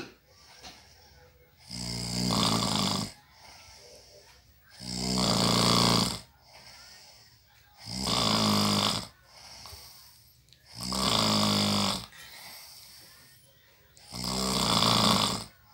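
Snoring in deep sleep: five loud, rasping snores about every three seconds, each lasting over a second, with quieter breaths between them.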